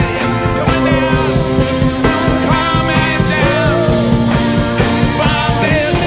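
Live rock band playing: electric guitars and drums with sung lead vocals over them.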